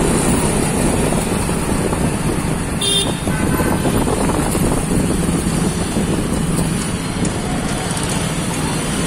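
Steady engine drone and road noise from riding in a moving auto-rickshaw through city traffic. A brief high-pitched toot comes about three seconds in.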